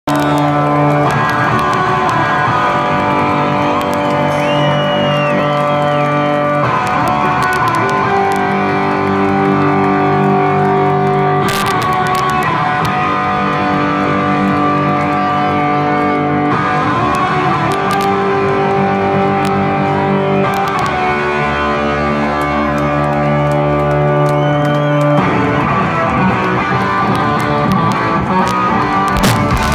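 Live rock band playing over a loud PA, led by electric guitar holding sustained chords that change every few seconds. The music is heard through a phone microphone in the crowd.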